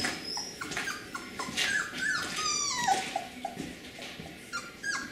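Young beagle puppy whimpering and squealing: a string of short, high-pitched cries that fall in pitch, thickest about two to three seconds in and starting again near the end.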